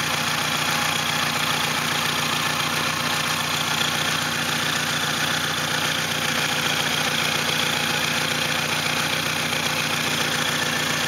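Saturn SW2's 1.9-litre twin-cam four-cylinder engine idling steadily, running with a misfire.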